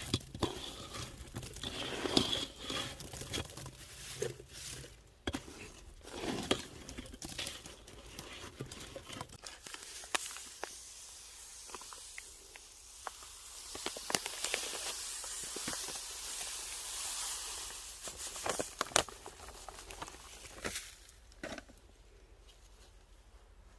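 Crinkling, rustling handling noises with scattered irregular clicks and knocks, and a steadier hiss for a few seconds just past the middle.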